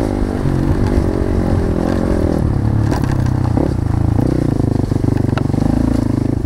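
Motorcycle engine running, its pitch shifting a few times with the throttle.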